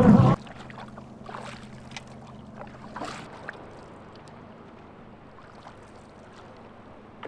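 Canoe on open water: quiet lapping with a few soft splashes and knocks, after a louder sound with a low hum breaks off abruptly just after the start.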